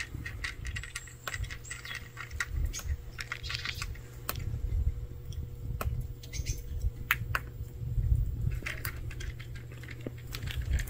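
A cat crunching dry kibble: an uneven run of short, sharp clicks, with a steady low rumble underneath.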